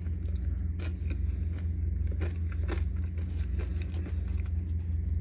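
A steady low hum runs under light scraping and clicking as a metal fork works apart baked Hasselback potatoes on a paper plate.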